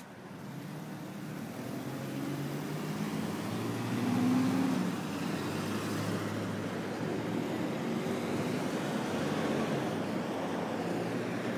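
Road traffic: a motor vehicle's engine and tyre noise, growing louder over the first few seconds and then holding steady.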